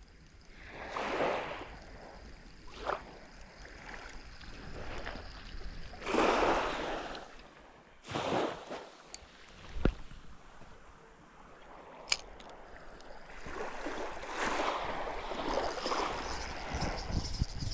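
Seawater washing in surges, each swelling and fading over about a second, with a few sharp clicks in between.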